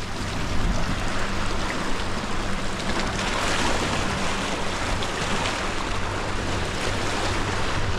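Sea waves washing against a rocky shore, a steady rushing that swells a little midway.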